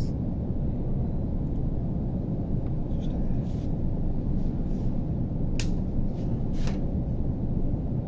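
Steady low machine rumble, with two short sharp clicks a little over halfway through.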